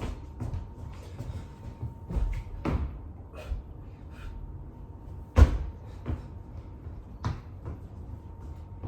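Irregular thuds and knocks of a person doing burpees on the floor, hands and feet landing and pushing off, with the loudest thud about five and a half seconds in.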